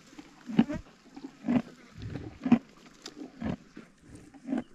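Black rhinoceros feeding on dry grass close by: a crunching tear or chew about once a second.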